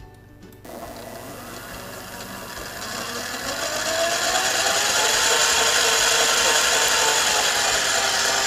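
Tramontina by Breville stand mixer switched on about half a second in, its motor whine rising and growing louder over the next few seconds as the speed dial is turned up, then running steadily. It is beating cake batter after the second addition of sugar.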